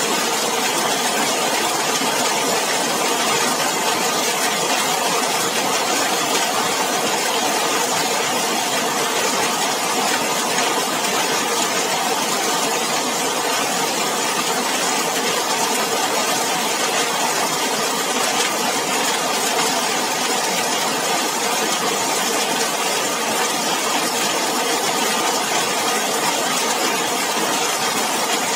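Heavy rain falling steadily on a zinc roof, a dense, even patter that does not let up.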